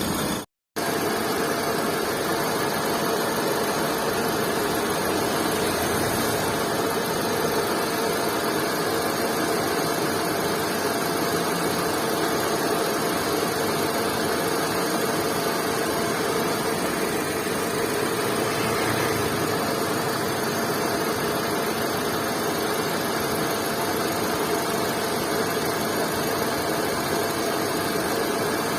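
Car engine idling steadily, with a sound that the mechanic puts down to oil sludge built up inside the engine. The sound cuts out briefly just after the start.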